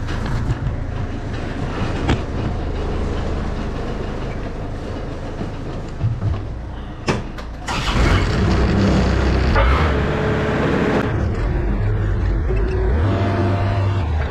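Forklift engine running as the machine is driven, getting louder and fuller about eight seconds in, with a couple of sharp knocks along the way.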